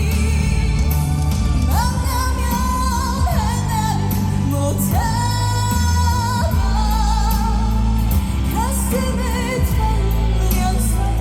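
A woman singing an emotional Korean song live with instrumental accompaniment, holding long notes with vibrato.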